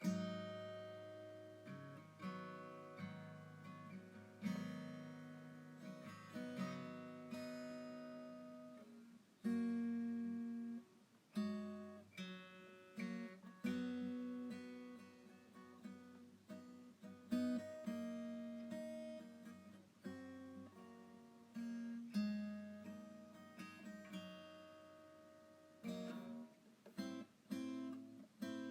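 Acoustic guitar music: plucked notes and chords that ring out and fade.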